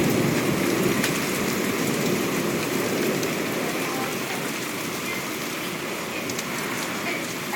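Hail and heavy rain falling in a thunderstorm: a steady hiss with scattered sharp ticks of hailstones. The tail of a thunder rumble dies away in about the first second.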